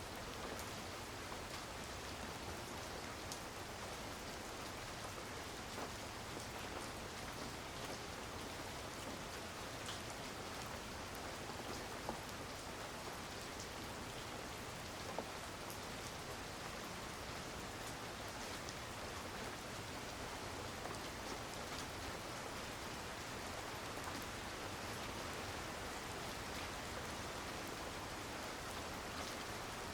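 Heavy rain falling steadily: an even hiss of rain on surfaces, with a few louder single drops standing out now and then.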